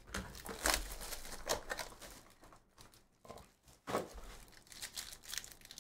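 Foil trading-card pack wrapper crinkling and rustling in the hands, with a few short irregular clicks and knocks of handling.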